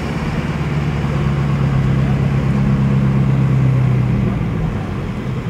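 A lifted pickup truck's engine running at a steady low pitch as the truck drives past. It swells in loudness and then fades out about four and a half seconds in.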